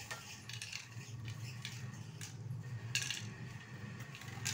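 A few short clicks and clatters of a small model pickup truck and tools being handled on a sheet of paper, the sharpest about three seconds in, over a low steady hum.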